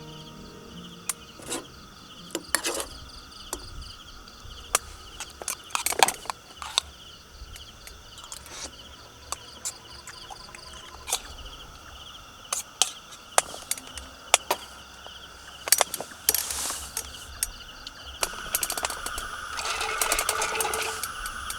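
Outdoor campsite ambience: a steady, pulsing chirr of insects, with many short, sharp clicks and knocks of things being handled. Near the end a louder, steady high drone joins in.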